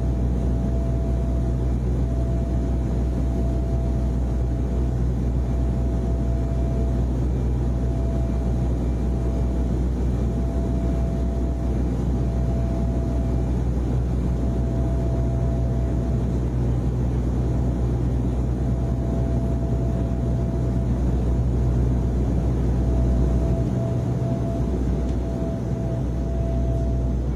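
Steady airliner cabin drone: engine and air-conditioning noise, a constant low rumble with a faint steady hum.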